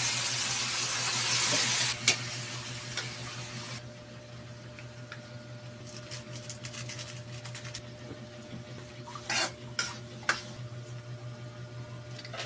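Pork frying in a hot pan: a loud, steady sizzle that cuts off about four seconds in. After that, a metal spatula clicks and scrapes against the pan in short strokes, several of them near the end.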